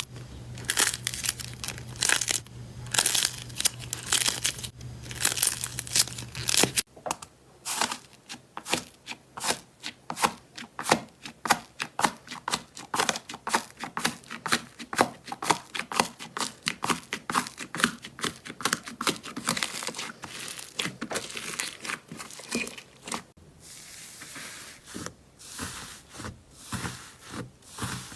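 Slime being squeezed, pressed and pulled: dense runs of crackling, crunching pops and tearing sounds. A low hum underlies the first seven seconds or so and stops suddenly.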